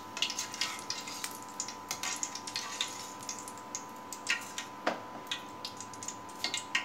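Curry leaves crackling in hot oil in a steel kadai: irregular small pops and spits of moisture bursting in the oil, with a sharper click of the metal ladle about five seconds in.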